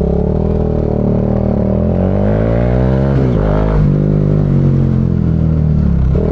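Bajaj Dominar UG2's single-cylinder engine running through a Two Brothers slip-on muffler: the revs climb, drop sharply about three seconds in as at a gear change, then pull steadily. The exhaust leak at the slip-on joint has just been sealed, so the note is continuous and smooth, with no sputtering.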